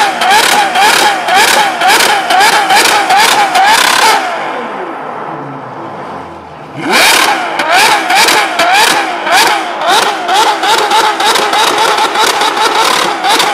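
Ferrari 812's naturally aspirated V12 being revved hard in rapid blips, the pitch climbing and dropping about two to three times a second. About four seconds in, the revving stops and the engine sound falls away for a couple of seconds. Then it is revved again with a sharp rising sweep, and the quick blips carry on.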